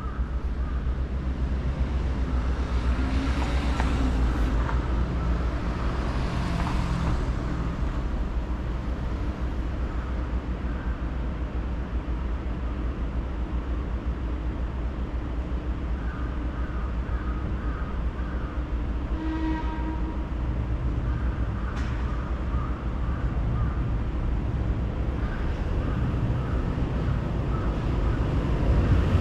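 Tokyu Toyoko Line electric commuter train running along the track: a steady low rumble with faint whining tones that come and go.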